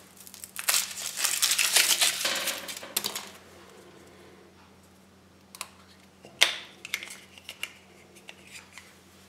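Foil wrapper of a Kinder Surprise chocolate egg crinkling as it is peeled off, then the chocolate shell cracking open with a sharp snap about six seconds in, followed by a few light clicks as the plastic toy capsule is handled.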